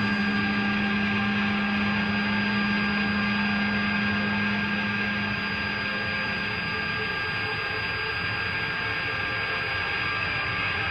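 A steady, noisy drone with several held tones layered over it; a low hum drops out about seven seconds in.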